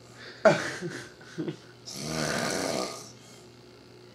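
A sleeping man snoring: a short snore with a sudden start about half a second in, then a longer one of about a second and a half starting about two seconds in.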